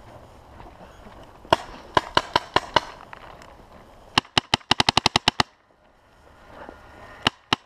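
Paintball marker firing: one shot, then a quick group of about five, then a rapid string of about a dozen shots at roughly ten a second, and two more shots near the end.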